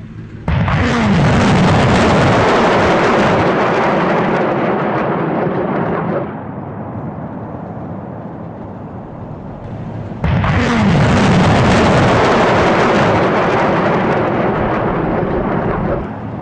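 Rockets launching from a BM-27 Uragan 220 mm multiple rocket launcher: two long rushing blasts of about six seconds each, one starting suddenly about half a second in and one about ten seconds in. A lower rumble carries on between them.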